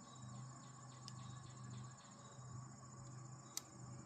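Crickets chirping steadily over a faint low hum, with a single sharp click about three and a half seconds in.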